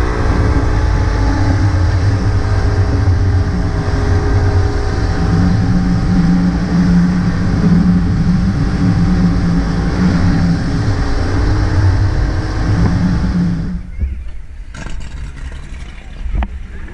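Speedboat engine running hard at cruising speed, a steady loud drone with the hiss of wind and water over it. About 14 s in it cuts off abruptly to much quieter beach ambience with a few faint knocks.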